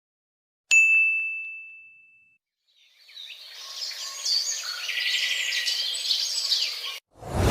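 A single bell ding, struck once and ringing out as it fades, followed after a short gap by about four seconds of birds chirping and twittering over a light background hiss.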